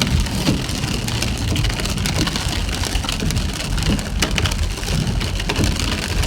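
Pouring rain pattering on a moving vehicle's roof and windshield, many small drop ticks over a steady low road rumble.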